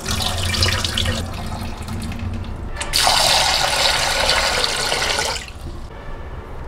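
Cloudy rinse water splashing as it is poured off a bowl of washed rice into a sink. Then a kitchen tap runs into the bowl in a steady rush for about two and a half seconds and stops suddenly.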